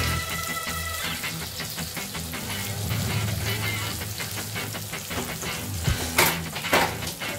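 Tomato masala frying in hot oil in a wok, sizzling and crackling steadily, with two louder sharp hisses near the end.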